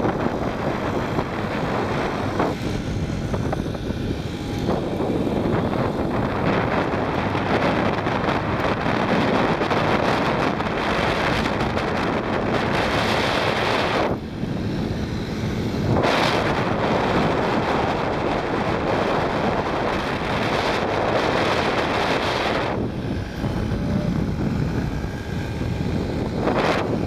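Moped scooter engines running under way, mixed with heavy wind rush on the microphone from riding. The wind rush eases briefly about halfway through and again near the end.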